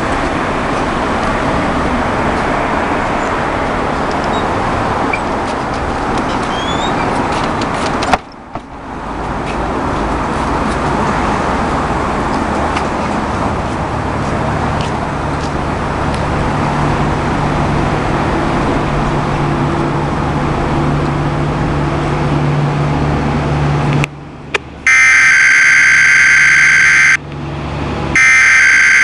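Weather radio hissing with steady static, which cuts out briefly about eight seconds in. Near the end come two loud bursts of shrill, steady high tones, the coded signal that opens the weekly test alert.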